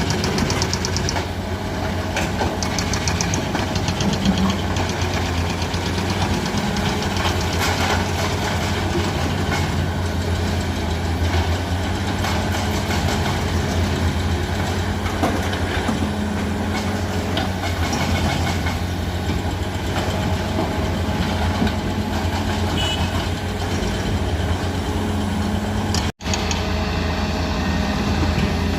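Cat 336D hydraulic excavator's diesel engine running steadily with a deep hum, with scattered knocks and clanks as it works loading rock. The sound drops out for an instant near the end.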